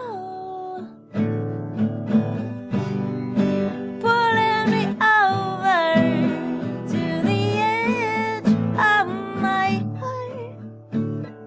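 Live solo performance of an original acoustic song: a singer holding long, pitch-bending sung lines over a steadily strummed acoustic guitar.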